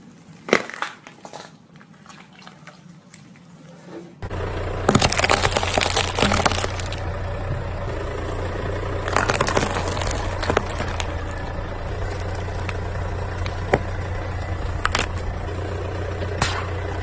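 Car tyres crushing objects on pavement. First an aloe vera leaf cracks under the tread. Then, over a car engine idling steadily, a cucumber crunches and splits in two bursts of crunching, and a few single sharp cracks follow near the end.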